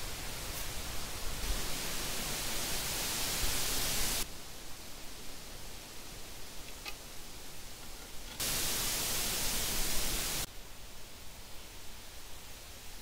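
Steady hiss, louder and brighter in two stretches of two to three seconds that start and stop abruptly, with one faint click about seven seconds in.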